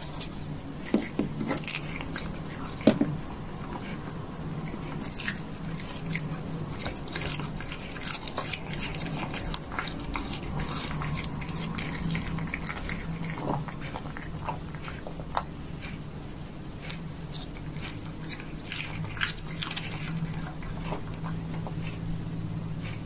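A cat chewing and biting cooked shrimp: a run of irregular, wet crunching clicks, with a few sharper snaps in the first few seconds.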